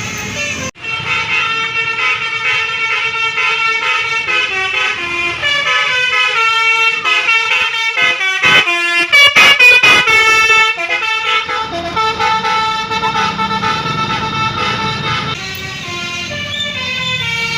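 Basuri 'telolet' multi-trumpet air horn on a bus playing a tune: several horn tones sounding together and changing pitch in steps, loudest about halfway through. The bus engine rumbles underneath in the later part.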